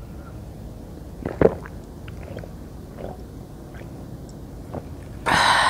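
A person drinking juice from a glass mug close to the microphone: a run of swallows and small throat and mouth clicks, the sharpest about a second and a half in, ending with a loud breathy exhale near the end.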